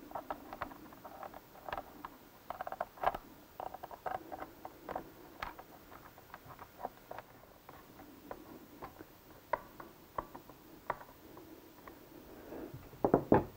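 Scattered light clicks and taps of a screwdriver and small bolts with washers against the plastic housing of a riding-mower CVT transaxle, as the top bolts are fitted during reassembly. The clicks come irregularly, several a second at times.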